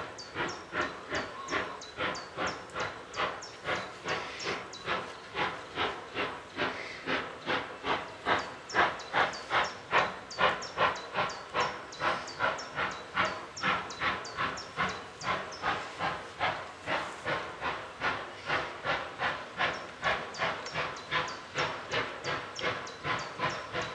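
Steam locomotive working hard, its exhaust chuffing in an even rhythm of about two to three beats a second. The beats grow louder towards the middle and ease slightly near the end.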